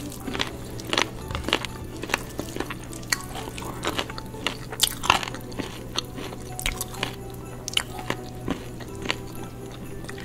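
Eating with the hands from stainless steel plates: irregular clicks and scrapes of fingers and food on the metal, a few a second, with chewing.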